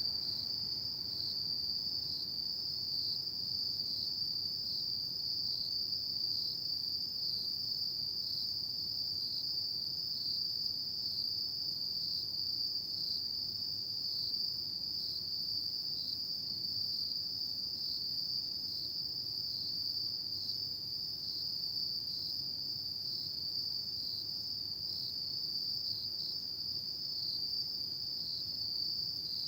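Autumn crickets at night, singing in a continuous high-pitched trill that hardly varies, over a faint steady background hiss.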